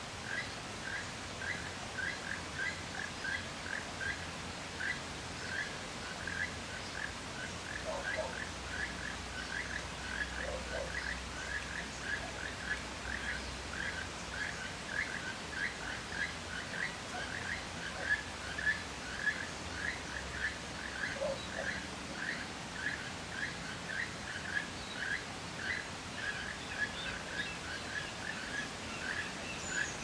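Outdoor ambience: a long, even run of short high chirps, about three a second, with a few lower single calls now and then.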